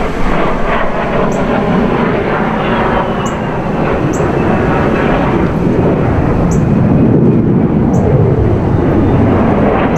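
Fighter jet's engine roaring loudly as it flies past, a continuous rumble that swells in the second half, with a faint falling whine about three seconds in.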